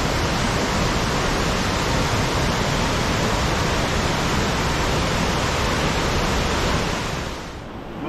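Steady rush of a waterfall in full monsoon flow, falling water crashing without a break. It dips in level near the end.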